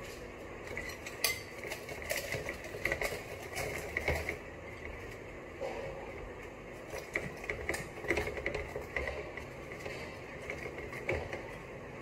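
Hands handling and stuffing a raw whole chicken in a glass bowl of marinade, with irregular small clinks and knocks against the glass.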